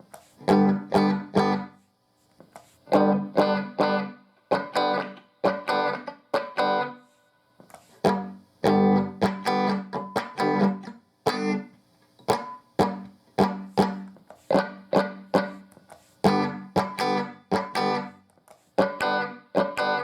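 Electric guitar played through a Fender tube combo amp, in short groups of three or four chord stabs that are choked off sharply, with brief silences between the groups.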